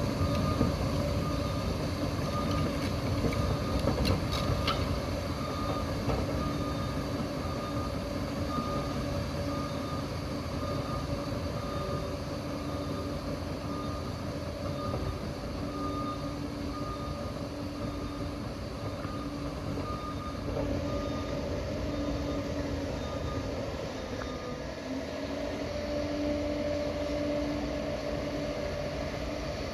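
Steady rumble of a moving vehicle, with a faint whine that comes and goes and a few clicks about four seconds in.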